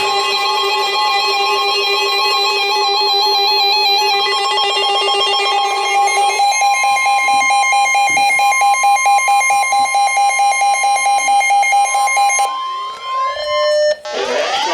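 Synthesized electronic alert tones opening an Emergency Alert System warning. Steady tones are held together, then about six seconds in they change to a pair of tones pulsing a few times a second. Near the end the pulsing gives way to rising pitch sweeps.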